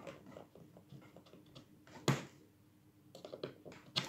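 Small metal clicks and taps of pliers gripping and working a bellows pin out of an old Hohner two-row melodeon's bellows frame. One sharper click about two seconds in, and a quick run of clicks near the end.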